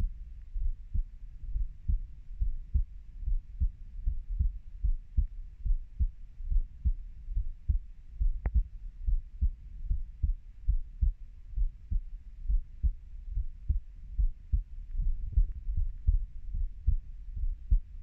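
Human heartbeat: low thumps in a steady, even rhythm, a little faster than one beat a second. A single sharp click comes about halfway through.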